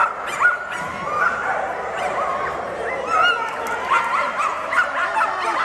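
Many dogs barking, yipping and whining at once: a constant overlapping din of high yips, with sharper barks standing out every second or so.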